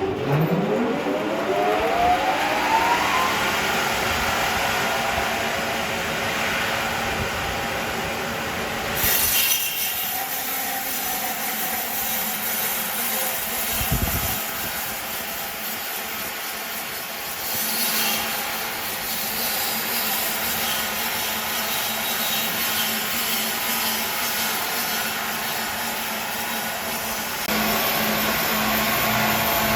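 Wood-processing machinery running: a motor whines up to speed in a rising pitch over the first few seconds, then a steady loud mechanical noise that changes abruptly a few times.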